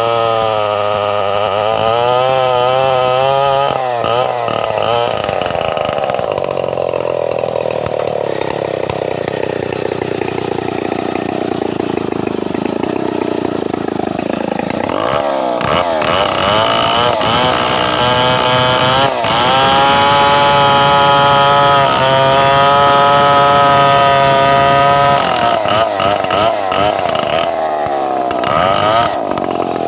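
Stihl 070 two-stroke chainsaw running hard while ripping a log lengthwise. Its engine pitch rises and falls over the first few seconds, sits lower through the middle, and holds high and steady for several seconds about twenty seconds in.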